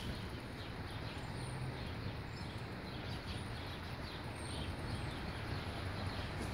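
Faint outdoor background: a steady low hiss and hum with small birds chirping faintly now and then.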